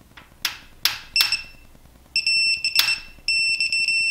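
Ratchet clicks from a digital torque wrench as a main bearing cap bolt is pulled up, then the wrench's electronic beep sounding steadily for about two seconds, broken once, signalling that the 20 Nm target torque has been reached.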